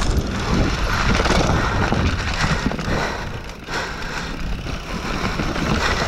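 Mountain bike riding fast down a dirt trail: tyres rolling and crunching over dirt and roots, with the bike rattling and clattering over the bumps and a steady rumble of air over the microphone. The noise eases briefly about halfway through.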